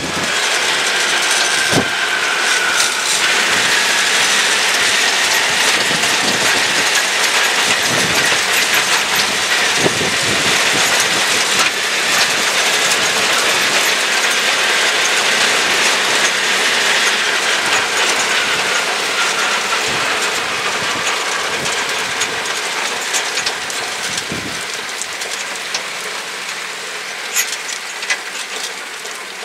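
Ride noise from inside an open-sided Tomcar off-road buggy on the move: a loud, dense rattling clatter with many short knocks over a rushing noise. It grows quieter over the last several seconds.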